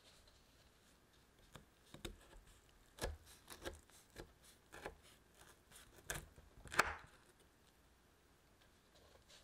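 Chef's knife cutting down through a baked caramel walnut bar on a wooden board: a string of crunches and knocks as the blade breaks through the walnuts and hits the board, the loudest about seven seconds in.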